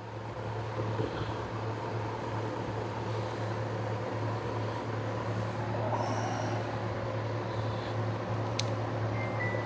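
Kubota U27 mini excavator's diesel engine running steadily at idle, a low even hum, with a single sharp click a little before the end.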